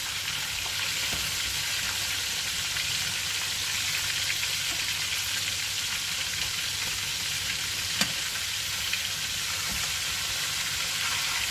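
Flour-coated chicken drumsticks deep-frying in hot oil in a Dutch pot: a steady sizzle, with a single sharp click about eight seconds in.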